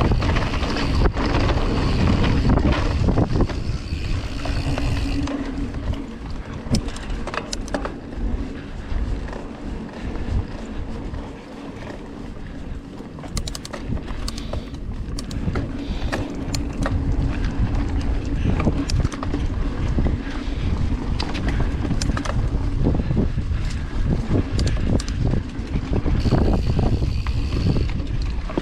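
Mountain bike ridden fast down a dirt singletrack: a steady rush of wind on the microphone and tyre rumble, broken by frequent clicks and rattles from the bike jolting over bumps. The noise eases off for a few seconds near the middle, then picks up again.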